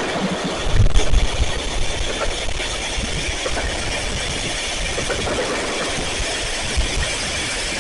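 Steady low rumble of many fireworks going off in the distance, with a few faint pops and a brief louder swell about a second in.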